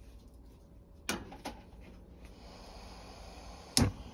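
Two sharp clicks about a second in and one louder knock near the end, like things being handled and set down in a kitchen, with a faint hiss between them.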